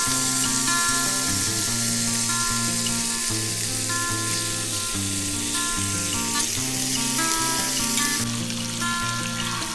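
Raw bacon strips sizzling as they hit a hot, oiled ridged grill pan, a steady frying hiss, with background music playing over it.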